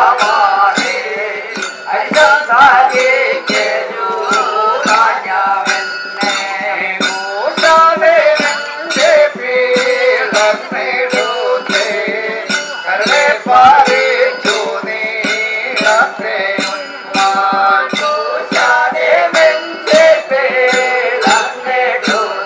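Padayani ritual music: a voice singing over a steady beat of sharp metallic percussion strikes, about two a second.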